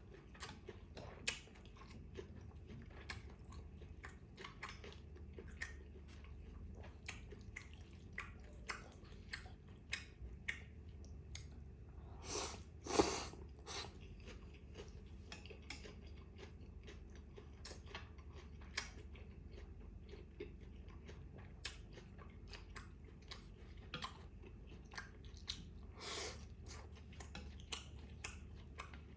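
Close-miked chewing and biting of a beef rice-noodle salad (bún trộn bò): a steady run of wet mouth clicks and smacks with light crunching, plus a longer, louder burst about 13 seconds in and another near 26 seconds.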